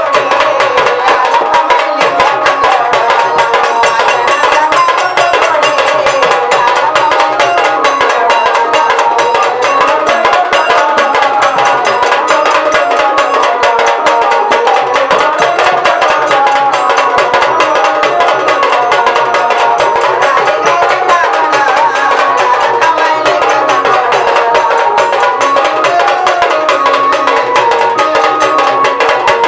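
Marathi jagran gondhal devotional folk music: fast, steady drumming and percussion under a wavering melody line, running evenly throughout.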